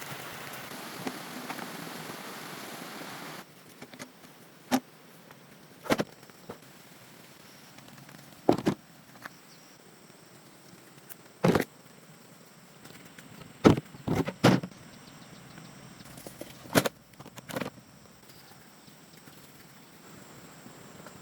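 A steady hiss that cuts off about three seconds in, then about a dozen sharp knocks at irregular intervals, some in quick pairs.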